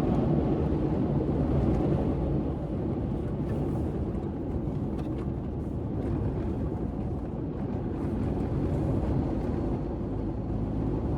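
Steady road noise of a car driving on a gravel road: tyre rumble and engine hum.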